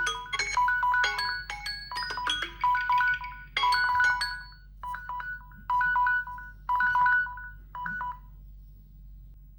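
Samsung Galaxy phone alert tone: a bright marimba-like melody. It plays quick running notes for about four seconds, then short two- and three-note figures about once a second, and stops a little after eight seconds in.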